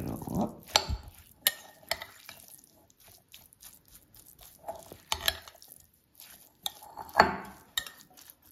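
Metal spoon stirring a couscous and tuna salad in a glass bowl, with irregular scrapes and clinks of metal on glass. A denser stretch of stirring comes in the first second, and a sharp clink about seven seconds in.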